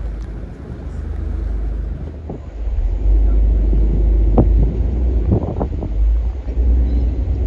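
Low rumble of a RiverCat ferry's engines under way, with wind buffeting the microphone on its open deck. The rumble grows louder about two and a half seconds in, and a few short knocks come near the middle.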